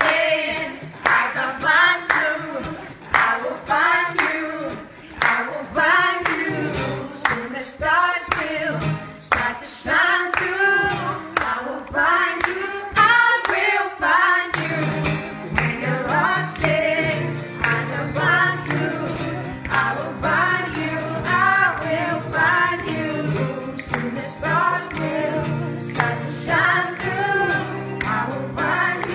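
Singing over music, with sharp percussive clicks throughout; about halfway through, a steady low bass note comes in under the voice.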